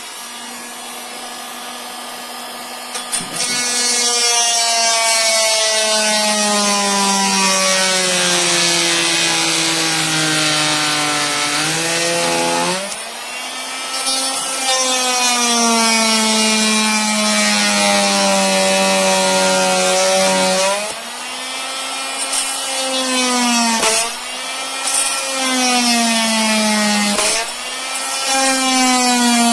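Oscillating multi-tool (renovator) cutting laminate flooring, trimming a board back from the wall to restore the expansion gap. The motor's whine sags in pitch as the blade bites and jumps back up when the pressure eases, several times over; the cutting gets louder about four seconds in.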